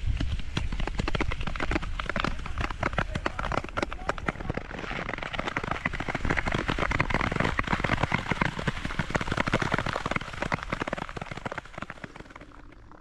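Nordic ice-skate blades gliding and scraping over rough natural lake ice, a dense crackling hiss of quick clicks that swells in the middle and fades away near the end.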